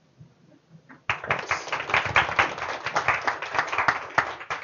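Audience applauding, a dense patter of hand claps that starts about a second in and stops near the end.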